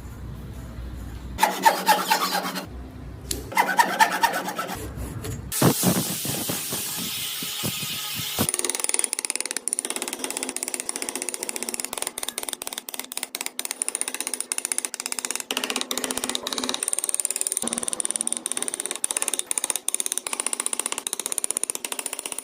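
Tools working wood: a few short bursts of a tool running, a few seconds of hiss, then a long stretch of fast, even scraping strokes with a faint high whine.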